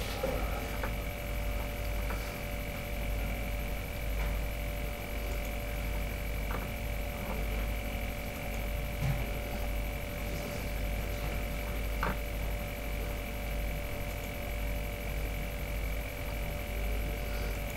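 Steady electrical mains hum with several faint, thin steady tones above it. A few soft clicks stand out, the clearest about twelve seconds in.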